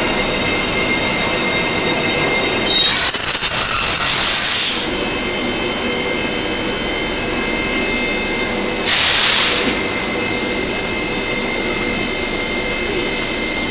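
Metro train running, with a steady rush of wheel and track noise and high whining squeal tones. The noise swells louder twice, at about three seconds in and about nine seconds in.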